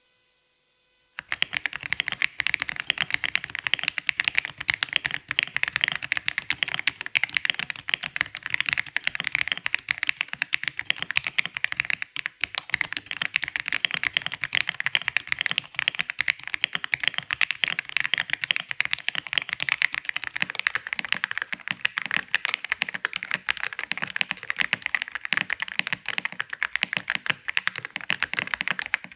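AULA F87 Pro mechanical keyboard with Leobog Graywood V4 switches being typed on quickly and continuously, a dense clatter of keystrokes that starts about a second in.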